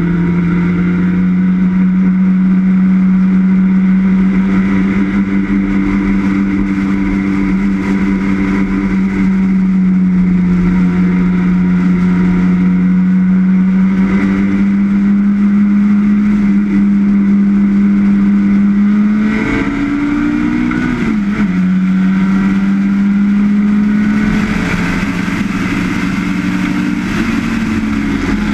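Vintage race car's engine heard from inside the open cockpit, pulling hard at a steady pitch that slowly climbs. About two-thirds of the way through the pitch dips sharply and then recovers, like a gear change. Near the end a rushing hiss of wind grows louder.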